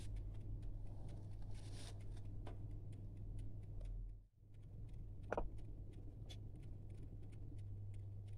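Small clicks, taps and rustles of fried cauliflower florets being handled off a paper towel and laid into a pot. A steady low hum runs underneath.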